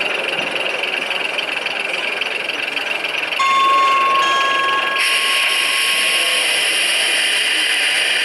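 Steady background noise of a busy exhibition hall. About three and a half seconds in, a steady electronic beep-like tone starts and sounds for about three seconds, and a louder steady hiss joins it at about five seconds.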